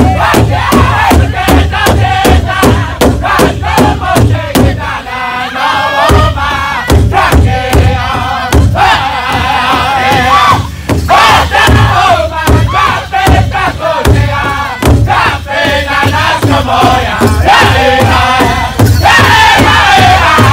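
Powwow drum group: several men strike one large hide drum together in a steady beat and sing high-pitched in unison over it. The drumbeat drops away briefly about five seconds in while the voices carry on.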